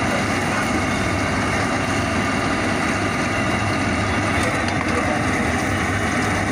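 Hot oil sizzling steadily in a large iron kadai as battered tomato vadas deep-fry, over a steady low rumble.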